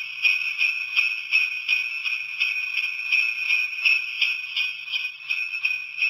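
Recorded sleigh-bell jingling played by a LEADWORKS 50Fifty Christmas Can novelty sound machine, shaken in a steady rhythm of about three jingles a second. It sounds thin and tinny, with nothing in the low end.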